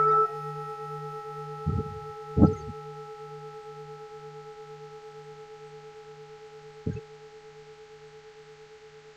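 Large Buddhist temple bell ringing on after a strike, its tone fading slowly over a low pulsing hum. Short knocks sound twice about two seconds in and once near seven seconds.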